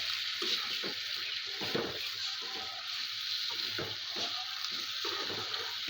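Water running steadily and splashing, with small irregular splashes and spatters throughout.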